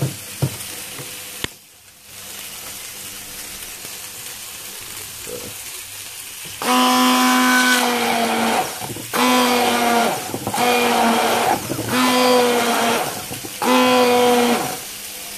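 Cookworks stick blender puréeing tomatoes and mushroom stalks for a sauce, run in five short bursts of motor whine starting about six and a half seconds in, each dropping away between pulses. Before it starts, a steady frying sizzle.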